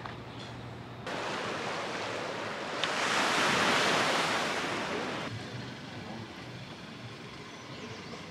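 A steady rushing outdoor noise, of the kind surf or wind makes. It comes in suddenly about a second in, swells to its loudest in the middle, and drops away sharply a little past five seconds.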